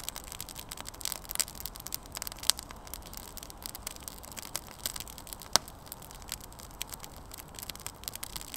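Small fire of damp kindling and birch bark just catching, sizzling with irregular crackles and sharp pops, the loudest two about two and a half and five and a half seconds in.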